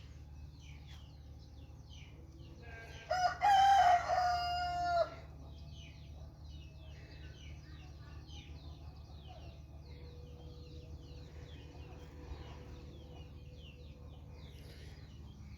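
A rooster crows once, a call of about two seconds a few seconds in, over many faint short chirps and a low steady hum.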